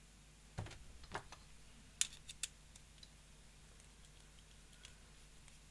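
A few light clicks and taps of a small tool against a brass lock body as a grub screw is being worked out, the sharpest about two seconds in, then faint ticks.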